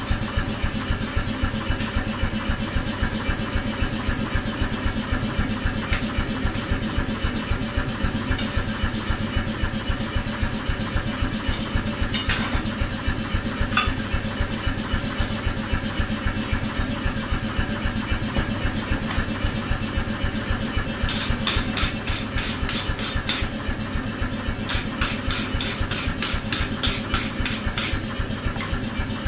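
Steady, pulsing mechanical drone of a running machine. About two-thirds through come two runs of quick hammer blows on red-hot steel on an anvil, about four a second.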